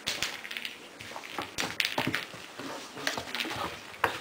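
Irregular taps and knocks, a few of them sharp clicks, as a Siberian husky puppy pushes a treat-dispensing ball around.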